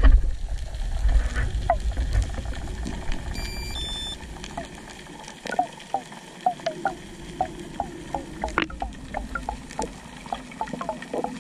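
Underwater sound during a freedive, picked up through the camera. A low rumble fades out in the first couple of seconds, leaving scattered sharp clicks and a run of short falling chirps, several a second, from about halfway on. There is a brief run of high beeps around three seconds in.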